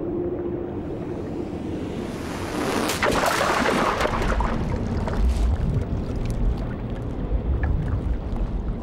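Rushing water noise. It swells to a sudden loud rush about three seconds in, then settles into a low rumble with faint clicks.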